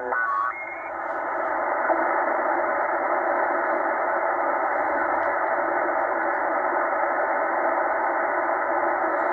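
Tecsun H-501X shortwave receiver in lower sideband giving a steady, narrow, muffled hiss of band noise while being tuned up through the 80-meter amateur band. About half a second in, a brief whistle steps up in pitch as a signal is tuned past.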